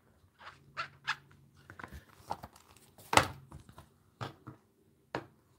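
Craft supplies handled on a tabletop: a few short taps and knocks of a clear acrylic stamp block being put down, with soft rustles of a cloth. The sharpest knock comes about three seconds in.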